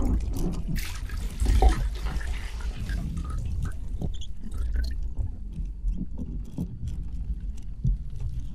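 Water splashing, loudest in a surge about a second and a half in, followed by scattered drips and small splashes.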